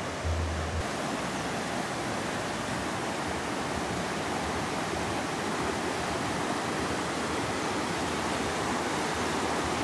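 The Kishanganga (Neelum) River, a fast mountain river, rushing over rocks in white-water rapids: a steady, even rush of water.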